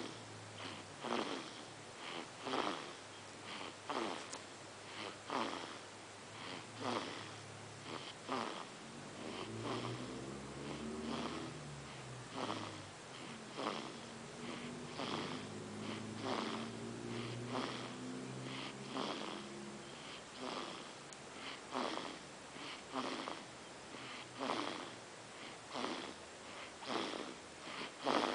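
Someone asleep and snoring: short, wheezy, noisy breaths repeating steadily about every second and a half. A low pitched hum rises and falls through the middle stretch.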